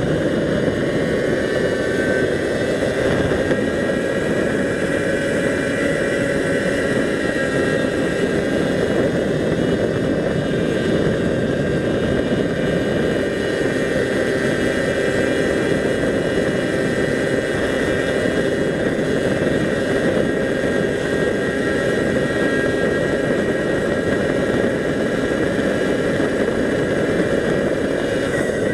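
Motor vehicle driving at a steady speed: a steady engine hum with a faint whine that shifts slightly in pitch early on, mixed with road and wind noise.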